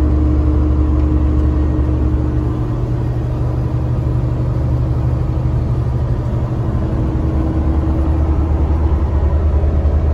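Heavily loaded semi truck's diesel engine droning steadily as it pulls up a grade, heard from inside the cab along with road noise.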